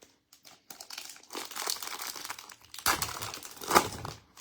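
Foil wrapper of a football trading card pack crinkling and tearing as it is ripped open by hand, with louder crackles about three seconds in.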